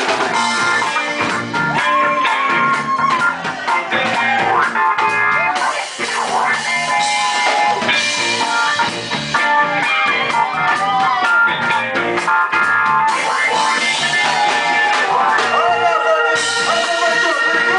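Live band playing loud amplified music: electric guitar, electric bass and drum kit, without pause.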